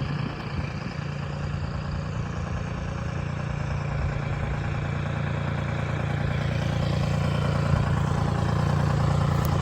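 Timberjack 225D skidder's diesel engine running steadily with a low hum and some clatter, growing gradually louder.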